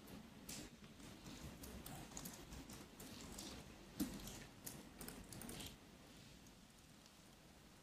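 Faint typing on a laptop keyboard: a run of irregular key clicks with one louder tap about four seconds in, stopping a little before six seconds.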